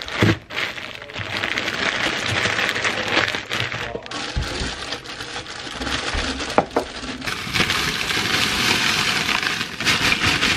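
Plastic freezer bag crinkling and cracking as a block of frozen chopped onions is broken apart in it, with small clicks of frozen pieces. In the latter part, frozen diced hash browns rattle as they are poured from their bag into a crock pot.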